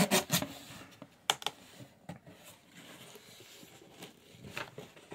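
Hands handling a cardboard shipping box: a brief rubbing and scraping of cardboard at the start, then a few sharp taps and light rustles.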